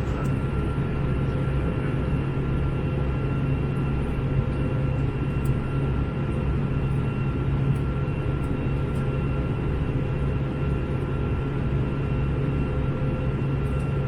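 Steady cabin noise of an Airbus A321 in flight: a constant engine drone and airflow rush with a strong low hum and a few faint steady whining tones above it.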